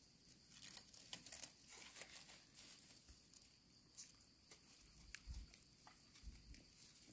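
Faint scraping and crackling as a knife blade scrapes soil and dry leaf litter off the base of a freshly dug mushroom, with scattered small clicks and a few soft low thumps.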